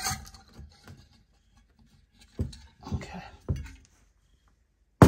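Objects being handled on a wooden workbench: three dull knocks a little over halfway through, and a sharper, louder knock right at the end.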